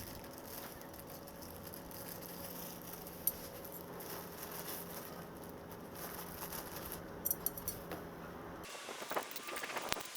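Light clinks and rattles of steel round-bar and flat-bar parts being handled and fitted together: a single clink about three seconds in and a short cluster of clinks near the end. The steady background cuts off abruptly just before the end.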